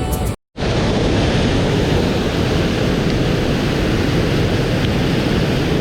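Plucked-guitar music cuts off abruptly a fraction of a second in, then the loud, steady rush of a rain-swollen mountain stream.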